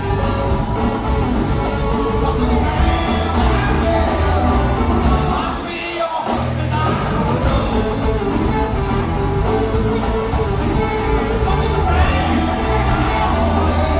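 Live blues-rock band playing, with a male lead singer over electric guitars, bass, Hammond B-3 organ and drums. The bass and drums drop out briefly about six seconds in, then come back in.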